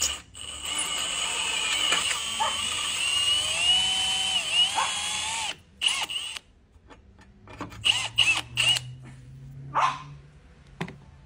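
Power drill turning a titanium-coated hex-shank drill bit, with a steady whining run of about five seconds whose pitch wavers as it bites. This is followed by several short bursts.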